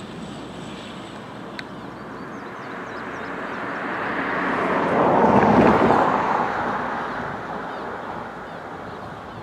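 A road vehicle passing close by: its tyre and engine noise swells to a peak about five seconds in, then fades away.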